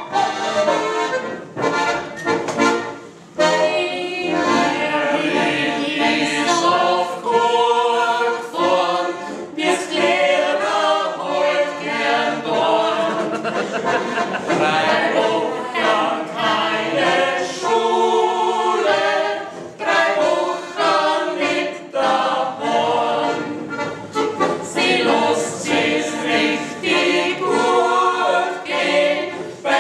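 Several voices singing a song together, accompanied by an accordion.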